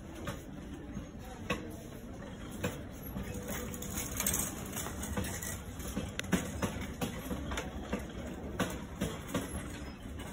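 Shopping cart rolling over a hard store floor, its wheels and basket rattling with scattered clicks and knocks, over a steady low hum of the store.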